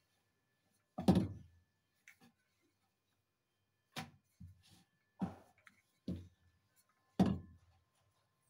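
Wooden rolling pin rolling out a large sheet of dough on a round wooden board, with about seven irregular wooden knocks as the pin and board bump against the stone counter, the loudest about a second in and near the end.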